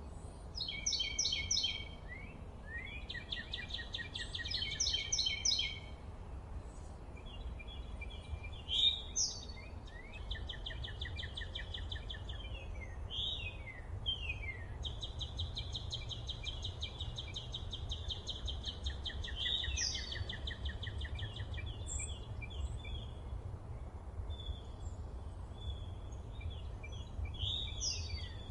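Several songbirds singing and calling over one another: rapid trills, chirps and quick down-slurred notes, including one long even trill through the middle. A steady low rumble runs underneath.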